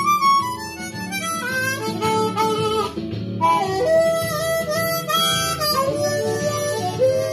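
Blues harmonica played with cupped hands: a falling run of notes, then held and bent notes after a short break, over an acoustic guitar backing.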